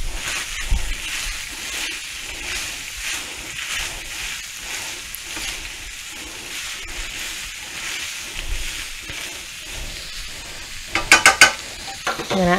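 Plastic slotted spatula stirring minced onion into browned ground beef in a hot nonstick skillet, the food sizzling lightly under steady strokes about two a second. A few short pitched sounds near the end.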